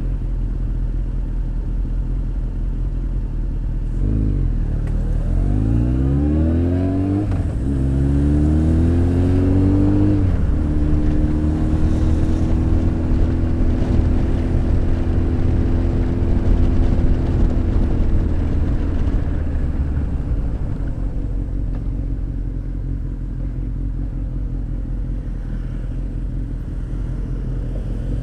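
Honda X4 motorcycle engine with an aftermarket exhaust, which the rider admits is a little noisy, heard from on the bike. About four seconds in it revs up through three gears in quick succession. From about ten seconds it holds a steady cruise, then gradually eases off and grows quieter.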